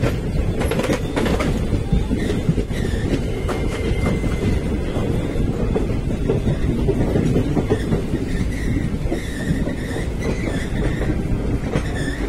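Train rolling past on the track: a steady heavy rumble with wheel clatter over rail joints, and a faint high squeal from the wheels that comes and goes.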